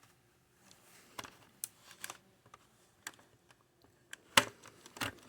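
Scattered small clicks and taps from handling a slim optical drive while a paper clip is pushed into its manual-eject hole to release the tray. The loudest clicks come about four and five seconds in.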